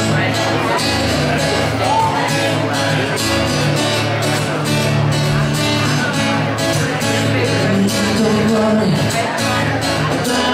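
Music: a band playing a reggae groove with bass, guitar and a steady beat.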